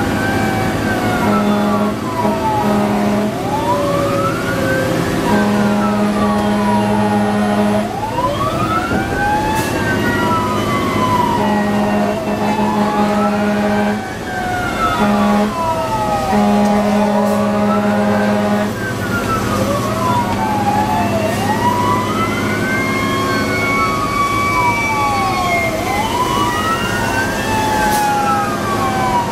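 Fire engine siren wailing up and down every two to three seconds, heard from inside the cab over the engine's rumble, with repeated long steady horn blasts of up to a couple of seconds.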